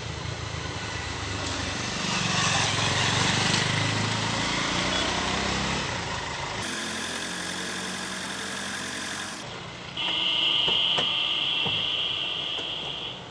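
Maruti Swift Dzire VDI diesel car pulling up and stopping, its engine running, louder about three seconds in as it draws level. Over the last few seconds, as the driver's door opens, there are a few clicks and a loud steady high tone lasting about three seconds.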